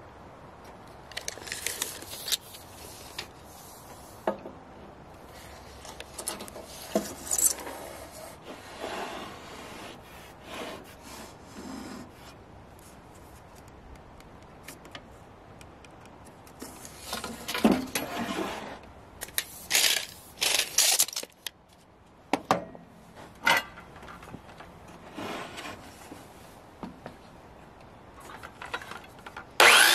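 Scattered rubs and scrapes of a pine 2x4 being handled, measured and marked on a metal saw table. Right at the end a handheld electric circular saw starts up loudly.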